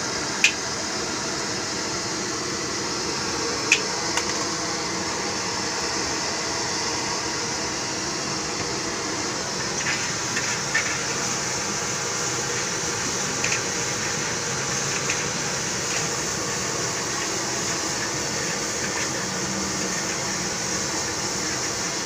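Nasi goreng stir-frying in a wok over a gas burner: a steady hiss of the flame and the frying rice, with a few sharp clinks of the metal spatula against the wok, the loudest two within the first four seconds.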